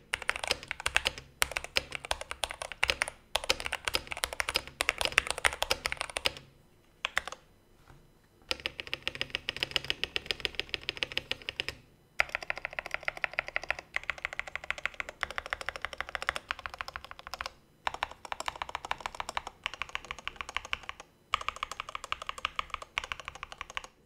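Typing on an IQUNIX OG80 Dark Side mechanical keyboard with TTC Speed Silver linear switches. It is modded with foam, tape and gasket cushions under the stabilizers to reduce rattle, which lessened but did not fully remove it. Fast runs of keystrokes come with a few short pauses.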